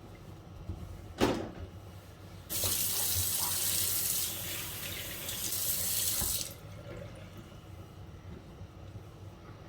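A single knock about a second in, then a kitchen tap running water into the sink for about four seconds before being shut off abruptly, as the cook washes up mid-cooking.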